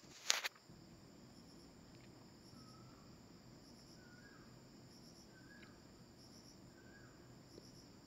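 Crickets chirping steadily in high repeated pulses, with a faint short falling chirp repeating about every second and a half. A brief sharp knock comes right at the start and is the loudest sound.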